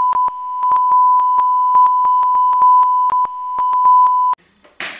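A steady, loud 1 kHz censor bleep with small clicks through it, bleeping out a long stretch of shouted swearing. It cuts off suddenly about four seconds in.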